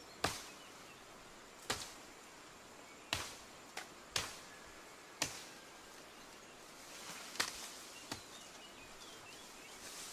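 About eight sharp chopping strikes of a hand tool into earth and brush, irregularly spaced roughly a second apart, each dying away quickly.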